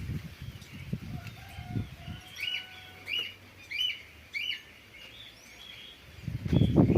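A bird calling outdoors, a run of four short arched chirps a little more than half a second apart in the middle. Wind buffets the microphone at the start and again, loudest, near the end.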